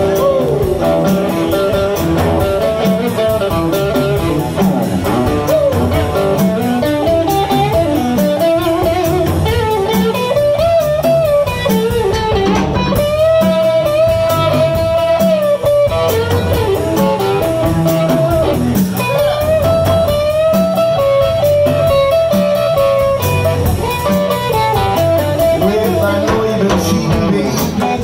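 Live blues band playing an instrumental break: electric guitar lead with long bending notes over a drum kit and upright double bass.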